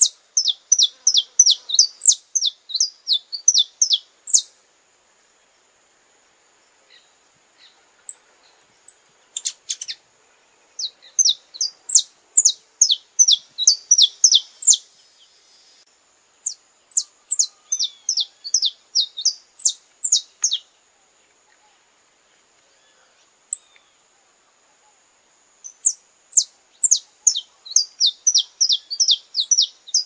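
Saffron finch singing: four bouts of sharp, high, downward-slurred notes, about three a second, each bout a few seconds long, separated by pauses of several seconds.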